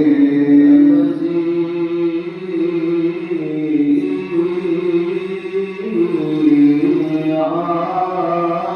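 A man's voice chanting Coptic Orthodox liturgical melody without words, holding long sustained notes that slowly step from pitch to pitch.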